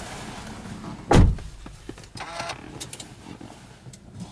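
A single heavy thump about a second in, then a brief whirr and a few sharp clicks from a Subaru Impreza's cabin as the ignition is switched on, before the engine is started.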